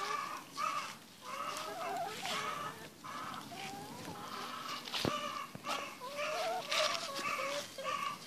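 Flock of hens clucking, a steady string of short calls one after another, with a sharp click about five seconds in.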